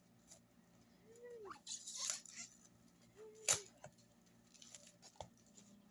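Utility knife (box cutter) cutting open a cardboard parcel: a scraping slice about two seconds in and a sharp click about halfway through, with small clicks and two short squeaky tones around them.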